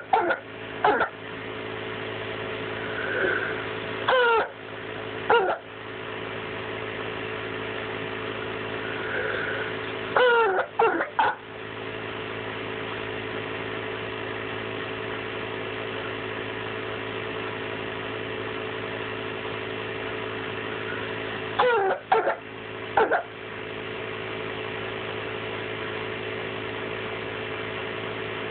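A child with croup coughing in short fits of one to three coughs, with long pauses between them: about a second in, twice around 4 to 5 seconds, a run of three around 10 to 11 seconds, and three more around 22 to 23 seconds. A steady low hum runs underneath.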